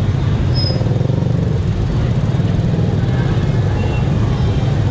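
Many motorbikes and scooters riding slowly in a dense pack, making a steady engine rumble mixed with crowd voices. A couple of short high-pitched tones sound over it, one about half a second in and a fainter one near the end.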